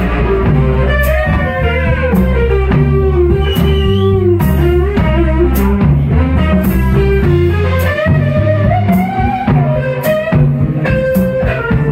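Live blues band's instrumental break: an electric guitar plays a lead line with bent, gliding notes over bass guitar and a drum kit keeping a steady beat with cymbal strokes.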